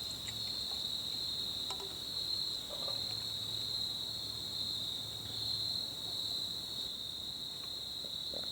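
Steady, high-pitched insect chorus, one unbroken trill that holds at the same pitch throughout.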